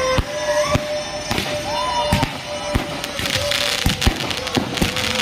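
Fireworks going off: a run of sharp bangs at irregular intervals, roughly two a second, over music with a long held note.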